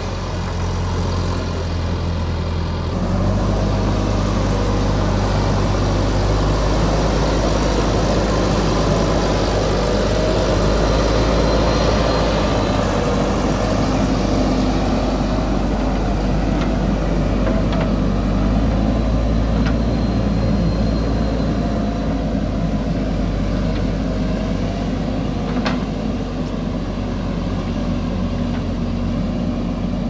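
JCB backhoe loader's diesel engine running steadily as the machine works, its note shifting about three seconds in. Two short sharp clicks come in the second half.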